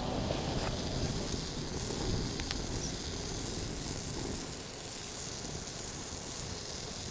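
A wood fire burning under a cooking pot, a steady low rumble with a hiss over it. Before that, the tail of cooking oil being poured stops about half a second in.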